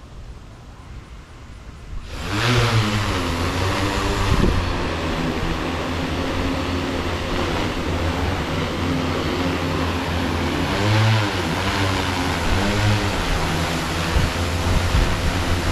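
Hexacopter's six HobbyWing XRotor X6 motors and propellers spinning up suddenly about two seconds in, then running loud and steady as the drone lifts off the grass. Their pitch swells and dips several times as the throttle is worked.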